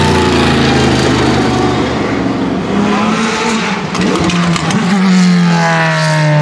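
Sauber Mercedes C9's turbocharged 5.0-litre V8 at full throttle, passing and pulling away. Its pitch drops as it goes by, then climbs again as it accelerates through the gears.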